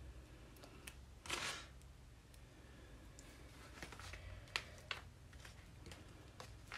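Faint handling of washi tape on paper: one short ripping rustle about a second and a half in as a strip is torn or peeled, then a few light taps and clicks as it is pressed onto the card.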